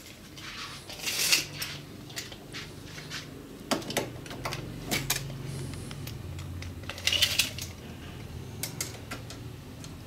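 Scattered clicks, taps and short scraping sounds from close handling of objects, loudest about a second in and again near the end, with a faint low hum for a few seconds in the middle.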